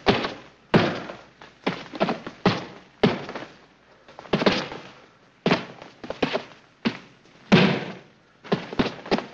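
Sound-effects recording of two boxers sparring in a ring: an irregular run of gloved punches landing, single blows mixed with quick two- and three-hit flurries, each hit decaying briefly. The loudest blow lands about three quarters of the way through.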